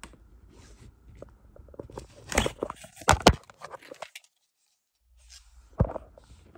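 Plastic DVD case being handled and opened: rustling handling noise with a few sharp plastic clicks between two and three and a half seconds in, and one more click near the end.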